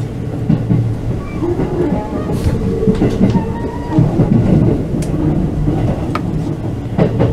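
Cabin of a moving JR West 221 series electric train: the steady running rumble of wheels on rail, with a few sharp clicks along the way.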